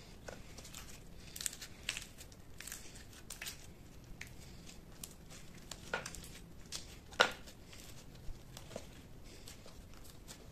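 Clear glitter slime being stretched, folded and pressed by hand against a tabletop, giving irregular small sticky pops and crackles, the loudest about seven seconds in.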